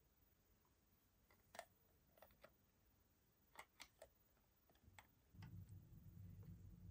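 Faint clicks and taps of small plastic toy pieces being handled, a few scattered through the first five seconds, then a low, steady rumble about five seconds in.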